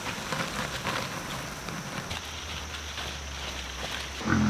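A loaded wheelbarrow pushed across wet grass: scattered crackling, rustling and footsteps, with a louder thump near the end.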